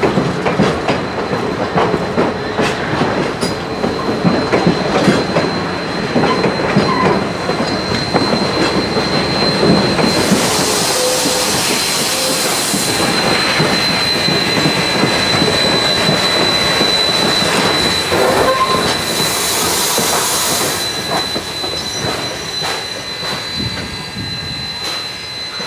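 Railroad passenger coaches rolling slowly along a curve. Their steel wheels click over the rail joints, with a steady high wheel squeal through most of it. Two bursts of hissing come about ten and nineteen seconds in.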